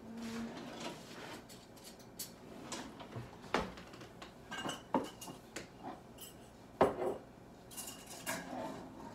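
Metal cutlery and dishes being handled: scattered sharp knocks and clicks, the loudest about seven seconds in, with a few short ringing clinks near the end.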